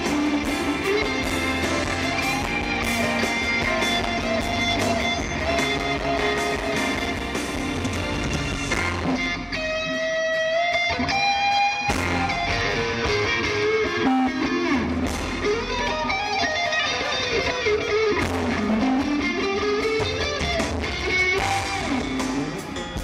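Live rock band playing an instrumental passage led by electric guitar. About ten seconds in the band thins to a few held notes stepping upward, then comes back in full.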